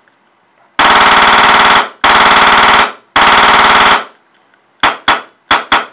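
Polarstar F1 HPA engine test-firing on compressed air: three rapid full-auto bursts of about a second each, then single semi-auto shots near the end.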